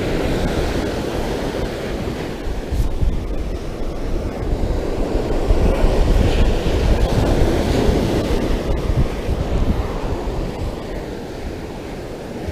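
Ocean surf breaking and washing up a sandy beach, with wind buffeting the microphone in gusts.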